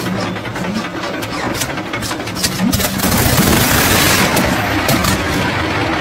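Vintage fighter plane's piston aero engine being started with its cowling off, firing unevenly with pops and flames from the exhaust stacks, then catching and running up louder about three seconds in as the propeller spins up.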